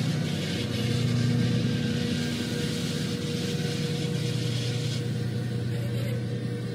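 Long yellow Wiebe construction train of hopper and ballast wagons rolling past: a steady rumble of wheels on the rails with a low hum under it.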